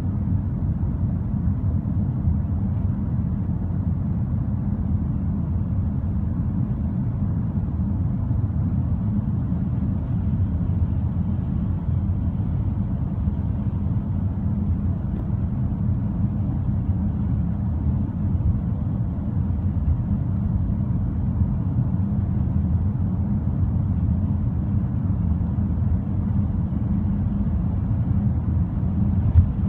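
Steady low rumble of a car driving, heard from inside the cabin, with one brief knock near the end.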